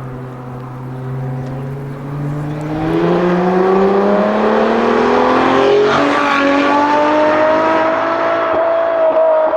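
Ferrari F40 LM's twin-turbo V8 accelerating, its engine note rising steadily in pitch and growing louder from about three seconds in, with a brief break near six seconds before it climbs on.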